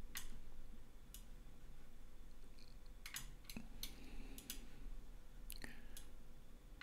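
Several scattered, sharp clicks of a computer mouse and keyboard being operated, over a faint low hum.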